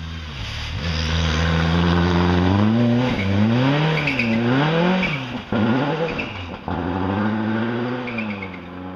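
Rally car engine revving hard, its pitch climbing and dropping several times as the driver works the throttle and gears, then settling to a steadier, slowly falling drone as the car goes away.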